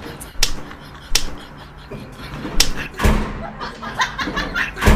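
Five sharp, irregularly spaced impacts, each short with a brief ring, the loudest near the end.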